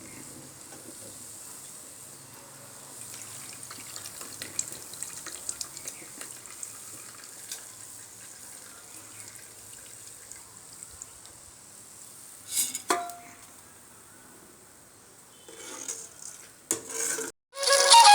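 Hot oil sizzling steadily as snack dough deep-fries, with scattered crackles and a few metal clinks of a utensil against the pan, the loudest about two-thirds of the way through and near the end.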